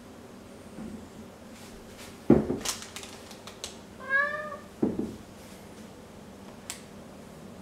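Domestic cat meowing once, a short call that rises and falls slightly, about four seconds in. Around it come a few thumps and knocks, the loudest a sharp thump a couple of seconds in.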